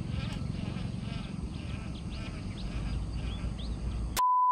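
Outdoor ambience with a low steady rumble and several short, rising bird chirps in the background. About four seconds in, a loud steady electronic beep tone starts.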